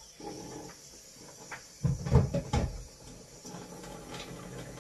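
Kitchen tap running into the sink as a tea towel is dampened, a steady hiss of water, with a cluster of three or four knocks against the sink about two seconds in.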